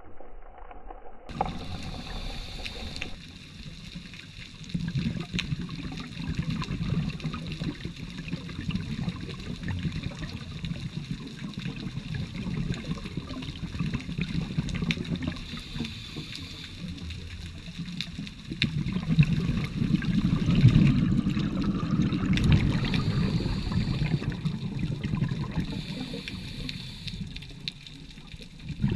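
Underwater sound from a scuba diver's camera: a muffled, gurgling rumble of water and regulator exhaust bubbles that swells and grows louder in the second half, with a few short hisses of the diver breathing in through the regulator.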